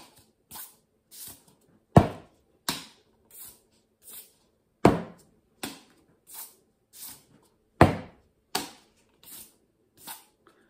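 Plastic cup rhythm played slowly on a tabletop. A loud knock of the cup hitting the table is followed by three lighter sounds as the cup is passed from hand to hand and swished one way, then the other. The pattern repeats about every three seconds, three times over.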